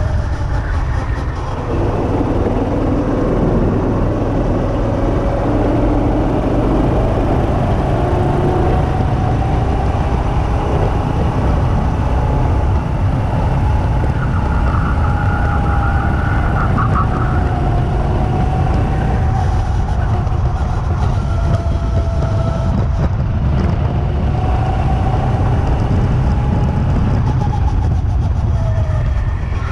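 Two-seater go-kart running at speed, its motor note rising and falling as the kart speeds up and slows through the corners, under heavy wind rumble on the kart-mounted microphone.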